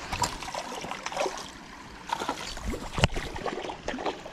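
Shallow stream water splashing and gurgling as a hooked trout is brought in toward the bank, with a sharp knock about three seconds in.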